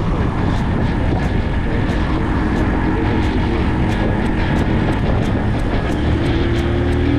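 Brixton Cromwell 125 motorcycle under way, its small single-cylinder engine running steadily under a heavy rush of wind noise on the microphone.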